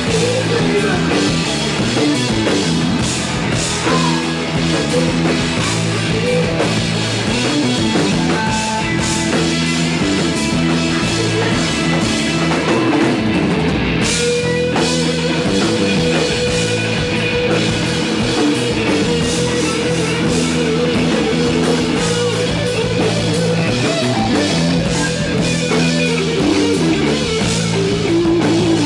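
A rock band playing live and loud: electric guitar, bass guitar and drum kit going together without a break, with a note held for several seconds from about halfway through.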